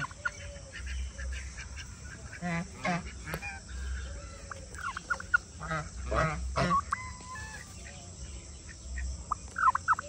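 White domestic tom turkey gobbling while displaying, its feathers puffed out. There are several bursts of rapid, warbling calls over the seconds, the clearest about a third of the way in, around two thirds of the way in and at the very end, with shorter calls in between.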